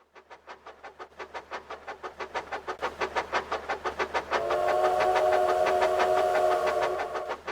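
Train sound effect: a rhythmic chugging of about six beats a second that grows louder, with a whistle of several tones sounding together for about three seconds in the second half.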